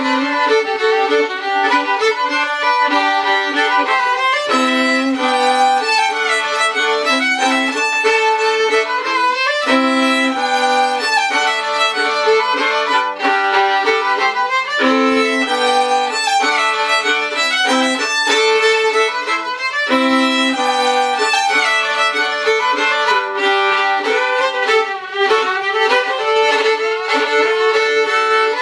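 Two fiddles playing an English folk tune together as a bowed duet, several notes sounding at once.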